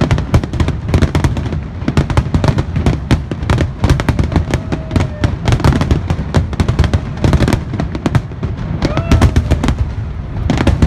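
Fireworks display at full intensity: many aerial shells bursting in rapid succession, a dense barrage of booms and crackling over a continuous low rumble.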